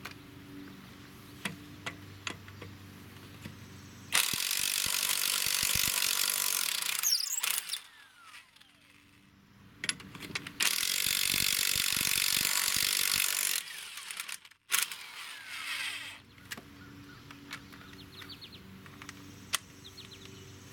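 Corded electric impact wrench hammering on the stuck lug nuts of a truck's rear wheel, in two loud bursts of about three seconds each, the first about four seconds in and the second about ten seconds in.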